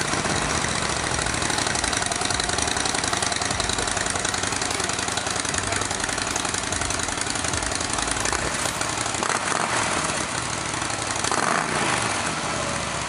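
Harley-Davidson Breakout's V-twin idling through its stock exhaust, just after start-up. Two small rises in revs come in the last few seconds.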